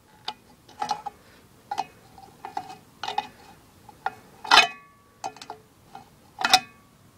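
Steel combination wrench clinking on a nut as it is tightened a bit at a time on a pull-start pulley bolted to a Briggs & Stratton opposed-twin engine. A string of irregular metal clinks, two louder ones in the second half.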